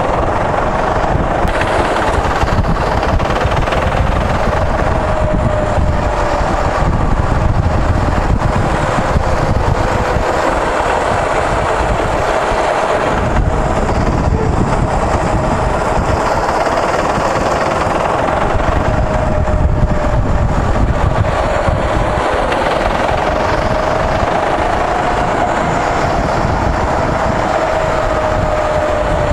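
Go-kart engine running at speed as the kart laps the track, its whine wavering up and down with speed over a loud, steady rumble.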